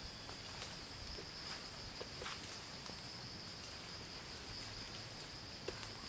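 Night insects, crickets among them, chirring in a steady high drone, with a few faint clicks scattered through.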